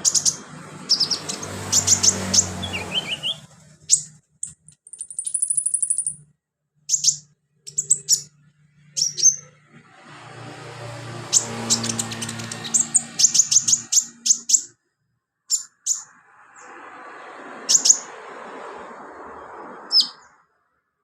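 Sunbird singing in bursts: sharp, very high chirps in quick runs, with a rapid high trill about five seconds in. A low background hum comes and goes underneath.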